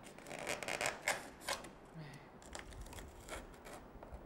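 The tip of a snap-off cutter knife being pressed again and again into a white foam boat hull, giving a run of small crackling clicks and scratches. The clicks come thickest in the first second and a half, then thin out to scattered ticks.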